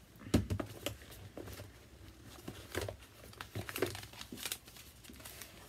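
Paper ephemera rustling and crinkling as it is handled and leafed through, in irregular bursts, the loudest about half a second in.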